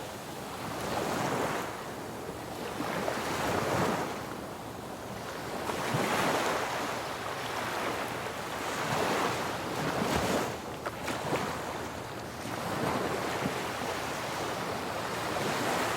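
Ocean surf breaking on a beach: a steady wash of waves swelling and easing every two to three seconds.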